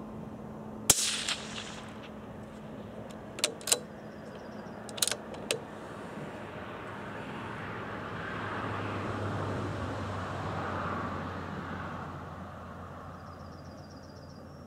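A single shot from a suppressed CZ .17 HMR bolt-action rifle about a second in, a sharp crack with a brief ringing tail. Four light metallic clicks follow over the next few seconds as the bolt is cycled for the next round. A soft rush of background noise then swells and fades.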